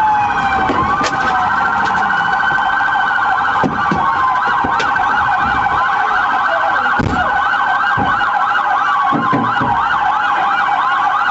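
Police car sirens sounding together: one in a fast, repeating up-and-down yelp, with a slower rising-and-falling wail over it. A few dull thumps come through underneath.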